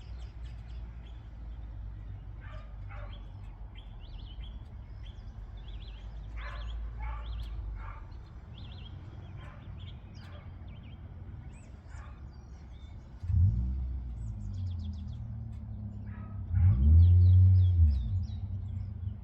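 Small birds chirping and twittering over a low steady hum. About two-thirds of the way through, a louder, deeper sound sets in suddenly and swells and falls in pitch, loudest near the end.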